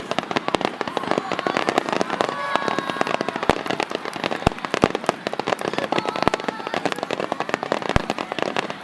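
Fireworks display finale: a dense, continuous crackle of bursting shells and stars, with several heavier booms among the crackling.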